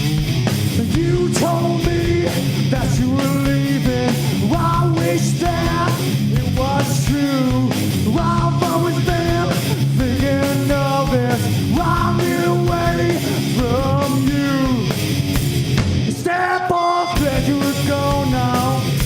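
Rock band playing live: guitar, bass and drums with a voice singing over them. Near the end the low end drops out for about a second before the full band comes back in.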